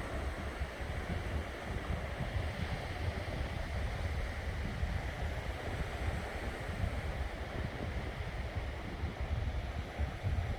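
Sea waves washing steadily onto a sandy beach, an even hiss of surf, with wind rumbling and buffeting on the microphone.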